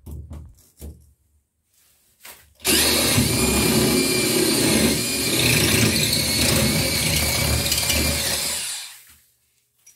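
Cordless hammer drill boring a 14 mm hole through glazed ceramic wall tile, run in plain drilling mode without hammer action to start the hole cleanly. It starts about two and a half seconds in, runs steadily for about six seconds and winds down near the end.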